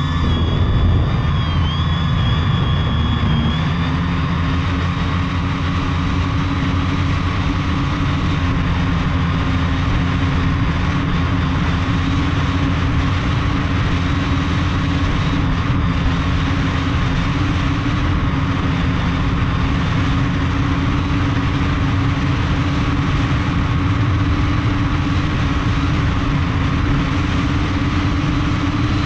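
Multirotor drone's electric motors and propellers running steadily in flight, heard from a camera on the drone's own frame: a held hum over a dense rush of noise. Music fades out in the first few seconds.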